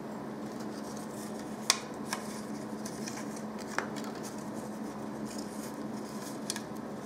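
Small handling sounds from the plastic film sleeve over the fork tube's end and the parts around it: light rustling and a few small clicks. Two sharper clicks come about two seconds apart, all over a steady low background hum.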